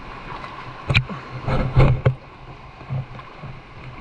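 Small fishing boat on the sea: a steady low rumble, with sharp knocks and splashes about a second in and again around the middle.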